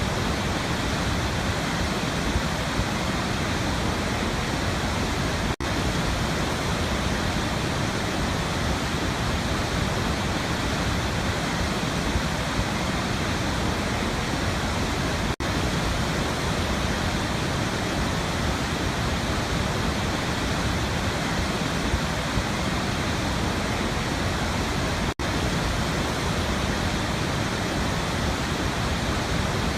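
Waterfall rushing steadily, with a momentary drop in the sound three times, about ten seconds apart.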